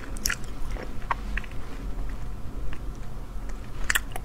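Wet mouth clicks and smacks from eating the soft, sticky pulp of akebia fruit, with a louder cluster of clicks near the end.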